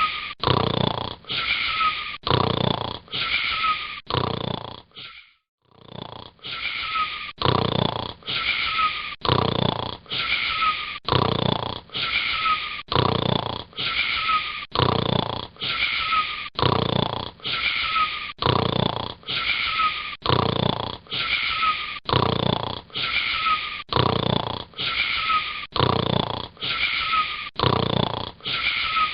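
Snoring: a short, wheezy snore repeated evenly about once a second, each one alike, with a brief break about five seconds in.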